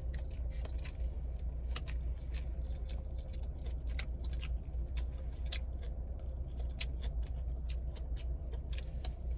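Close-up chewing of a Jersey Mike's sub sandwich, full of wet mouth clicks and small crunches, over a steady low rumble.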